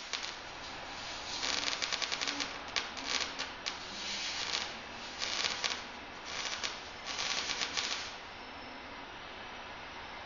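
MIG welder's arc crackling in about six short bursts as it lays weld on a steel plate, stopping about eight seconds in and leaving a faint steady hiss.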